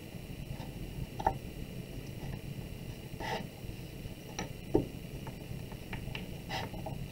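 Hands pressing and smoothing a soft clay slab on a wooden board: a handful of faint, scattered taps and soft rubbing.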